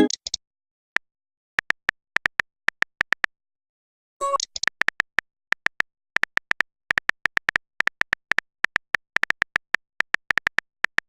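Phone keyboard tap sounds: short electronic clicks in irregular runs, with a brief message alert sound about four seconds in.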